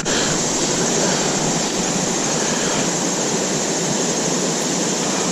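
River water rushing, a steady even noise with no breaks.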